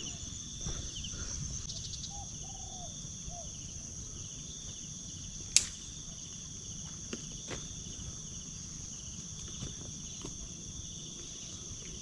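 A steady, high-pitched chorus of insects chirping outdoors, with a low rumble underneath. One sharp click about five and a half seconds in, and a few fainter ticks after it.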